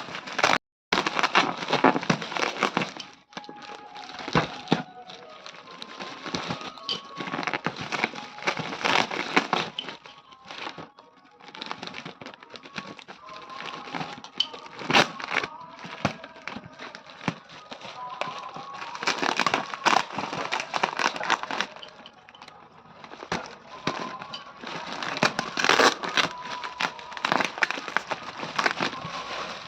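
Plastic packaging crinkling and rustling in irregular bursts as a ring light is unwrapped.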